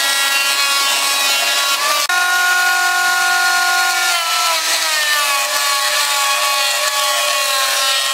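Benchtop thickness planer running as red oak boards are fed through it: a loud, steady motor and cutterhead whine. The pitch sags a little from about four seconds in.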